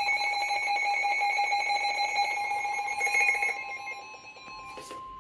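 Emergency Alert System attention signal: a loud, steady two-tone alarm (853 and 960 Hz sounded together) that announces an emergency warning. It drops away after about three and a half seconds.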